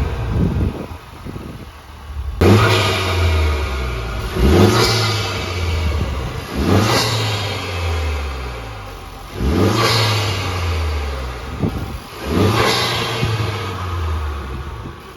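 Honda Civic Type R's turbocharged 2.0-litre four-cylinder, fitted with an Injen cold-air intake, free-revving in repeated blips: about five quick rises in revs, each dropping back over a couple of seconds, with a rush of intake noise at each blip.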